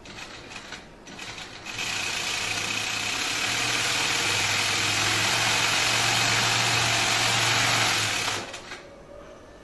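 Industrial post-bed sewing machine stitching thick sofa material: after a few small handling knocks it starts about two seconds in, runs steadily at full speed for about six seconds, then stops abruptly near the end.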